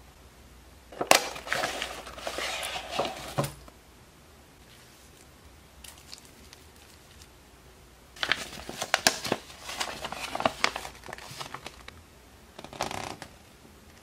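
Model-train packaging being handled: a plastic-wrapped sticker sheet and a paper instruction sheet crinkling and rustling. It comes in three spells: a long one about a second in, another from about eight seconds, and a short one near the end.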